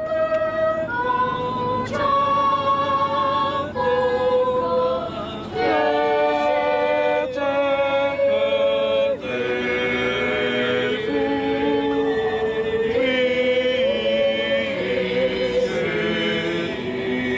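Children's choir singing a cappella in harmony, several voices holding long notes that move together every second or so.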